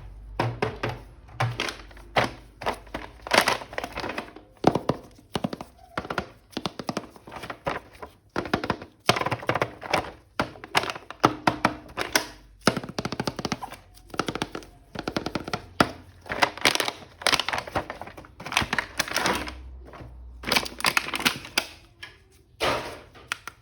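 Unboxing of a plastic action figure: irregular plastic clicks, knocks and rustling of the packaging and figure being handled, several sounds a second.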